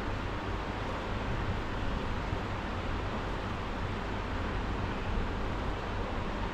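Steady background noise in a gym: an even hiss over a low rumble, with no clanks or knocks.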